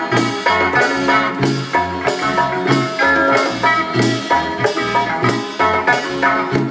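Latin tropical dance music, an instrumental passage with a steady bass pulse, percussion and a melodic lead line, without singing.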